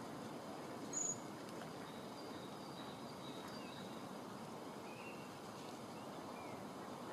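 Steady outdoor background hiss with faint, thin, high calls of small birds: one short high call about a second in is the loudest, with a few fainter short calls and little glides later.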